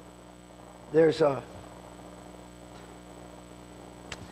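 Steady electrical mains hum, with one short spoken word from a man about a second in and a faint click near the end.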